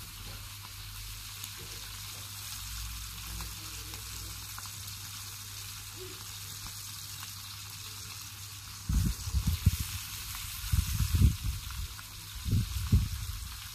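Steaks frying in garlic butter in a pan: a steady sizzling hiss. From about nine seconds in, irregular low rumbles come in over it and are the loudest part.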